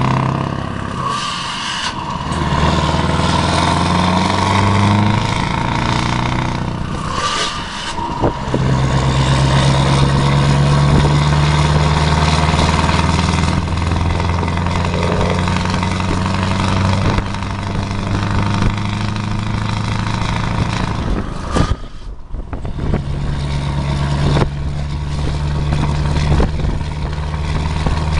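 Scania R580's V8 diesel engine, heard from the cab, pulling the truck along the road: its note climbs slowly and dips at gear changes, most sharply a little over 20 seconds in.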